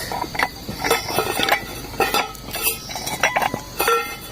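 Utensils clinking and scraping against a cooking pot of rice porridge, irregular clicks with short metallic rings, as the porridge is stirred and scooped.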